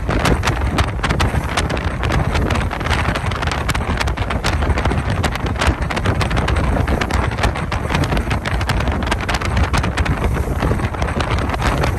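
Wind buffeting the microphone on a moving ferry: a loud, steady low rumble with constant crackling gusts, over the rush of the boat through the water.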